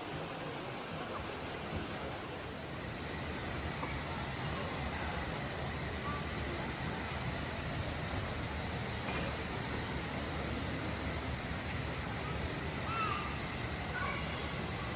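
Steady rushing background noise that gets a little louder about two to three seconds in, with a few faint short chirps over it.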